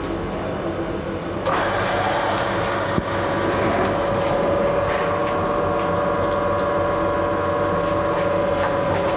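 Dalla Corte Studio espresso machine's rotary pump running steadily during a shot, with a steady hum. It steps up louder about a second and a half in, and there is a small click near the third second.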